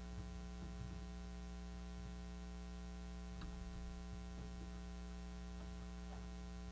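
Faint, steady electrical mains hum, with a few soft ticks now and then.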